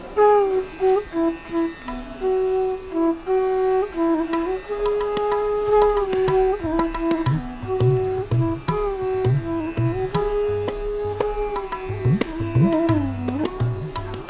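Indian classical instrumental music: a melody instrument plays held notes with slides between them, and tabla strokes join beneath it about six seconds in, some low strokes bending in pitch.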